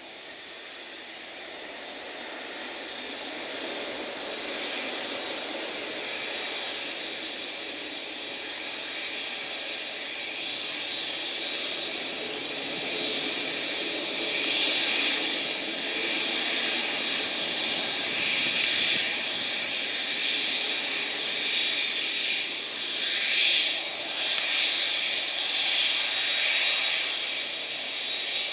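Boeing 787 twin-engine jetliner taxiing and turning on the runway at low thrust, its turbofans giving a steady high whine over a low rumble. The sound grows louder as the aircraft swings round toward the listener, swelling unevenly in the second half.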